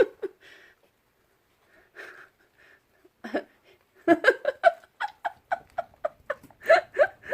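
A person laughing in a quick run of breathy giggles, about four a second, starting about three seconds in after a faint sound near the start.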